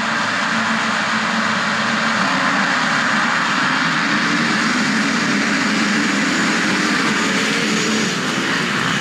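Many motocross motorcycle engines running at once, a loud, steady, dense drone in which no single bike's revving stands out.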